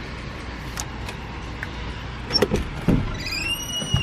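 A steady low hum, then a few knocks past the halfway point, followed near the end by a high-pitched squeak that rises slightly and then holds.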